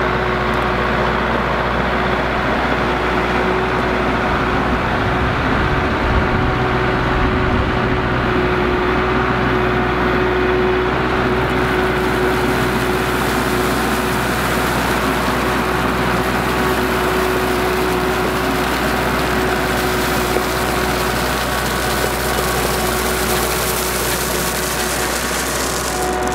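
Kubota compact tractor's diesel engine running steadily while driving with a loaded front-end bucket of crushed rock, with a steady hum over the engine note.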